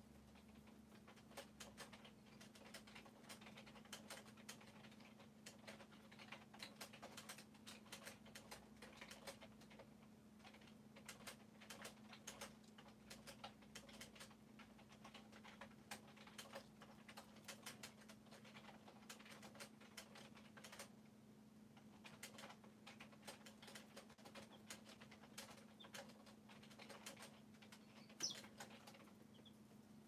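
Faint, rapid, irregular clicking and tapping of chicks pecking at crumble feed in a plastic feeder and scratching in straw litter, over a steady low hum. One short high peep comes near the end.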